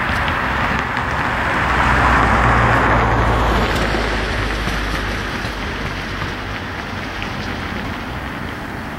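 Road noise from traffic on a wet street: a steady hiss of tyres on wet pavement with a low rumble, swelling as a vehicle passes about two to three seconds in, then easing off.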